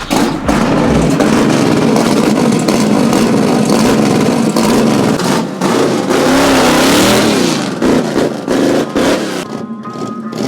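A vehicle's engine running loudly and revving up and down, its pitch rising and falling repeatedly in the second half.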